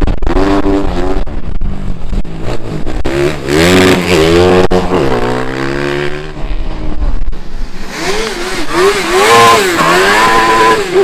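Race car engines revving hard, their pitch climbing and dropping again and again as the drivers accelerate and back off.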